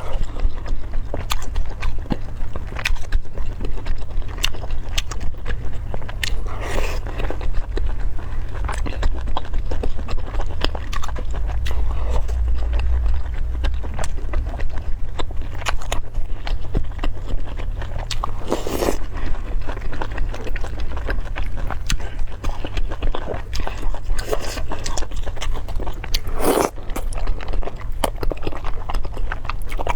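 Close-miked chewing and biting of food, with a dense run of quick wet mouth clicks and a few longer, louder mouthfuls, over a steady low hum.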